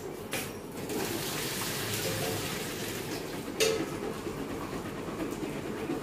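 Hot water and boiled cauliflower florets poured from a pot into a plastic colander, the water splashing and draining into a steel sink for about three seconds. It ends with a sharp clank of the pot or colander against the sink, followed by quieter trickling.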